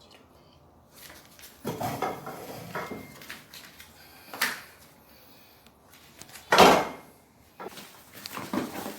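Objects being handled, with several separate knocks and clatters; the loudest comes about two-thirds of the way in.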